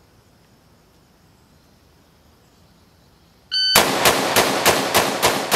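A shot timer beeps, then an AR-style rifle fires a rapid string of about seven shots in roughly two seconds, starting a little over halfway through, after a few quiet seconds.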